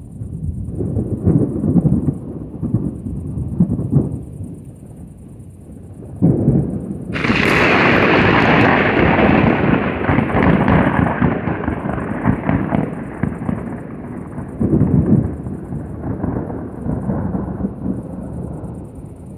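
Thunder from a nearby storm: low rumbling that swells and fades, then a sudden loud crack about seven seconds in that rolls away slowly over the next several seconds, with another swell of rumble near fifteen seconds.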